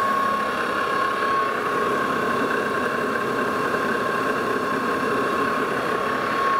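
Steady machine-shop drone with a constant high whine, a motor running evenly with no cutting going on.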